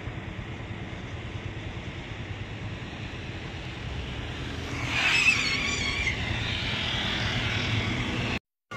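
Road and construction-site noise: a steady low engine rumble that grows louder about halfway through, joined by a wavering high whine, then cuts off suddenly near the end.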